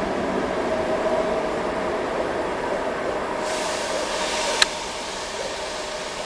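Train running by with steady running noise and a faint held tone. About three and a half seconds in, a hiss starts and ends a second later with a sharp click.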